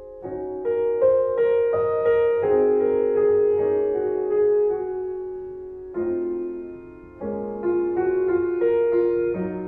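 Slow piano music: notes and chords struck one after another and left to ring and fade, with a new phrase beginning after a brief lull about six seconds in.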